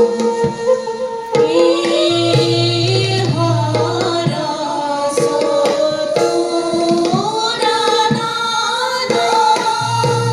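Indian music with tabla and a singing voice or melodic line over a steady drone.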